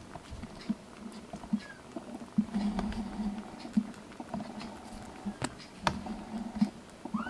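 Soft, irregular tapping and scratching of a black kitten's paws on a plastic box and fleece blanket, with two sharp clicks a little past halfway. A kitten's mew rises and then falls near the end.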